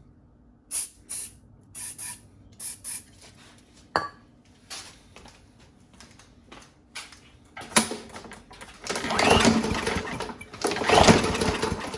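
Several short hisses of an aerosol starting-fluid can sprayed into the carburetor of a Craftsman M100 push mower's 140 cc engine. Then, in the second half, two pulls on the recoil starter crank the engine without it firing: it won't start even on starting fluid.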